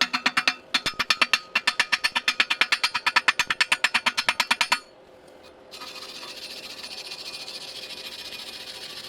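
Electric welding arc pulsing in a rapid, even run of sharp crackling clicks, about ten a second, for nearly five seconds. After a short pause it settles into a steady hiss.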